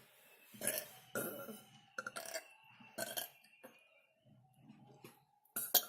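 A person burping several times in short bursts, the last one the loudest.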